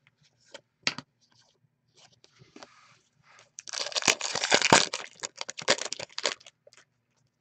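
Plastic wrapper of a hockey trading-card pack being torn open and crinkled: a few light clicks, then a dense crackling that starts about three and a half seconds in and lasts nearly three seconds.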